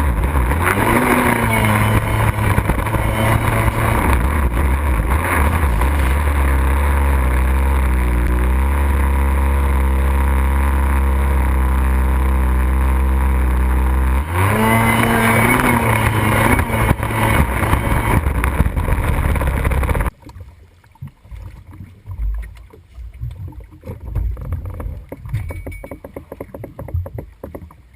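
Kawasaki X2 stand-up jet ski's modified 750 two-stroke engine with a factory pipe, running at speed. It revs up about a second in and again about 14 s in. About 20 s in the engine sound cuts off suddenly, leaving quieter, irregular splashing water.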